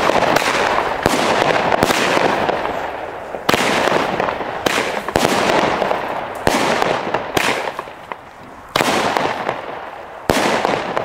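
Xplode "Burst" 9-shot consumer firework battery firing its shots one after another: a series of sharp bangs roughly a second apart, each followed by a fading hiss.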